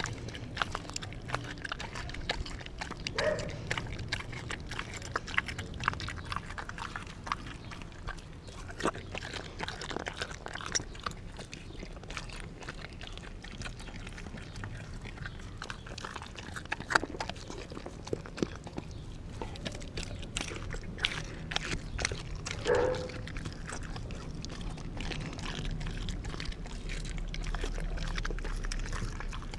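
Australian Kelpie chewing a chunk of raw meat close to the microphone: a run of wet clicks and smacks as it bites and works the meat. Two brief pitched sounds come from the dog, about three seconds in and again past twenty-two seconds.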